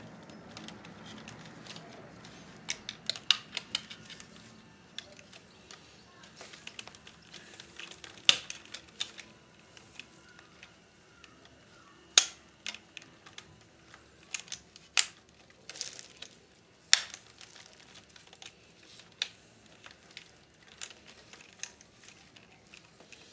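Scattered sharp clicks and taps of small plastic parts being handled and pressed into a cassette recorder's chassis, with light rustling between them.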